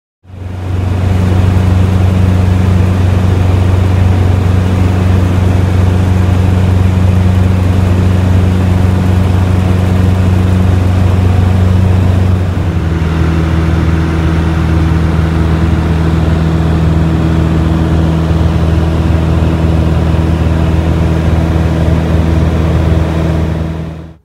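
Jabiru J170 light aircraft's engine and propeller droning steadily, heard inside the cabin. About halfway through the note settles slightly lower and a little quieter.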